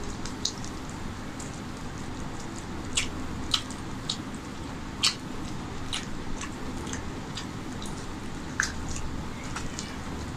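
Fingers mixing rice into chicken masala curry and pulling at a chicken piece on a steel plate: scattered wet clicks and squelches, a few sharper than the rest, over a steady low hum.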